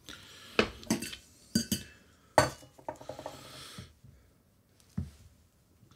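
Clinks and knocks of a stainless steel funnel and saucepan against a glass jar as it is topped up with brine, the loudest knock about two and a half seconds in, followed by about a second of hiss and a last knock near the end.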